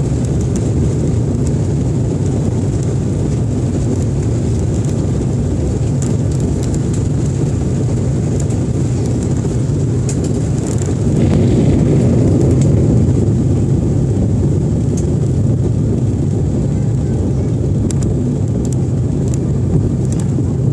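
Cabin noise of an Embraer 195 at takeoff thrust: its two GE CF34 turbofan engines make a steady, loud rumble as the airliner lifts off and climbs, heard from a window seat over the wing. The noise swells a little about halfway through, with a few faint clicks scattered across it.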